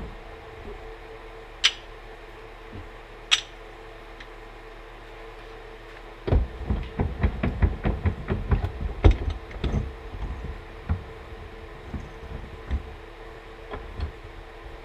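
Bench vise and shock absorber being handled: two sharp metal clinks early, then a run of clunks and knocks from about six to ten seconds in, as the shock in its split aluminum holder is set between the vise jaws and the vise handle is turned to clamp it.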